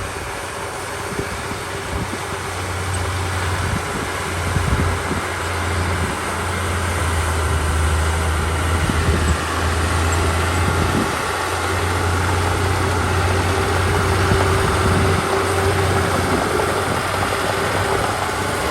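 Komatsu D31 crawler bulldozer's diesel engine running steadily, with a few short knocks here and there.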